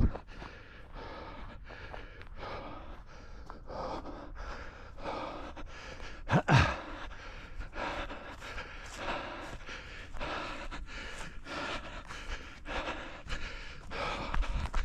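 A runner panting hard, the breaths and footfalls falling in a steady rhythm of about two a second. One louder, voiced gasp comes about six and a half seconds in.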